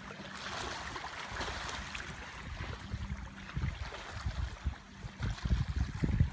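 Small waves lapping and splashing at the lake shore, with wind buffeting the microphone in low rumbling gusts that grow strongest near the end.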